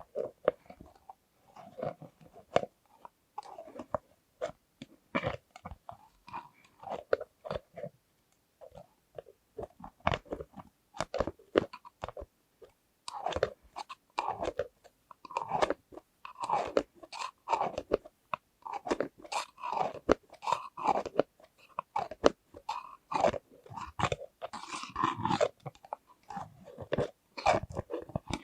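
Close-miked ASMR hand sounds: irregular sharp clicks and taps mixed with short sticky, squishy rubbing noises, busier and louder in the second half.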